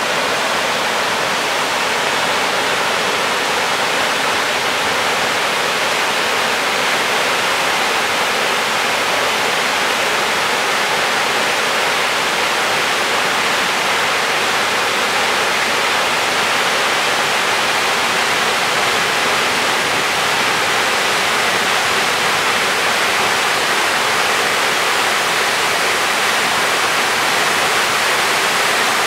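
A tall waterfall with a drop of about 21 m, its falling water rushing loudly and steadily.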